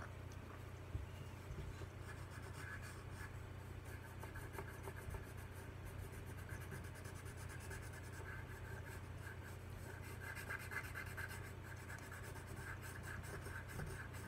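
Pencil shading on paper: faint, repeated scratchy strokes that come and go and are busiest near the end. A low steady hum runs underneath.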